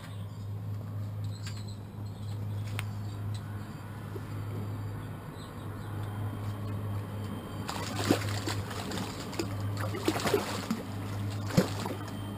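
Water splashing and sloshing close up in several bursts from about eight seconds in, as a small barbel is let go by hand into the river, over a steady low hum.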